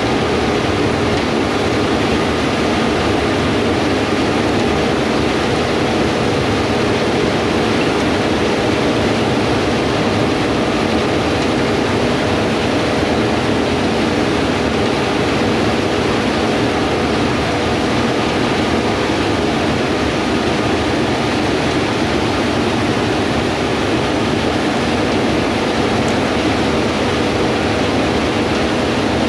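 A camera drone's propellers and motors running steadily, a constant whirring hiss with a few held motor tones.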